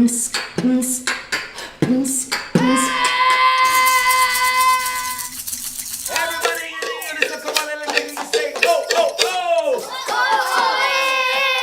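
A medley of vocal sounds and percussion: quick clicks and knocks, then a long held note about two and a half seconds in over a rapid clicking rhythm. Sliding notes follow, and another held note comes near the end.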